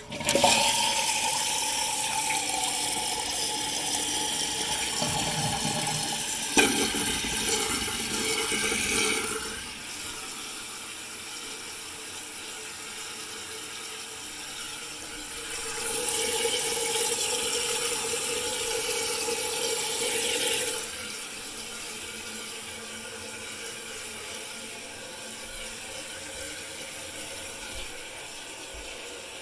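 Eljer Emblem toilet flushing: a loud rush of water for about nine seconds, with one sharp click about six and a half seconds in. Then the tank refills through its Fluidmaster fill valve with a steady hiss, louder for a few seconds in the middle before dropping back.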